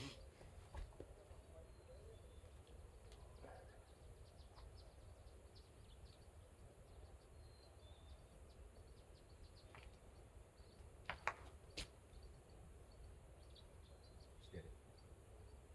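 Near silence outdoors: a low steady background with faint scattered bird chirps and a few brief knocks, the loudest a close pair about eleven seconds in.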